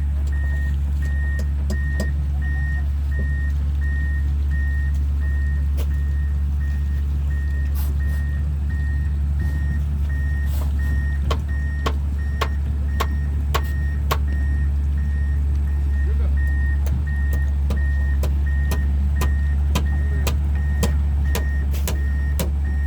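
Excavator's diesel engine running steadily under its travel alarm, a high beep repeating about one and a half times a second. Sharp metallic knocks come often in the second half.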